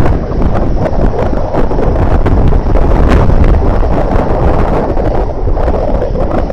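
Strong wind buffeting the microphone: a loud, rough low rumble that keeps going, with a few faint clicks.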